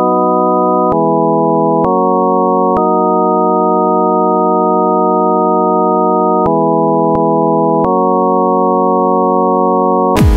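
Drum-less breakdown in an electronic dance track: held, organ-like synthesizer chords that change chord several times. The full dubstep beat comes back in right at the very end.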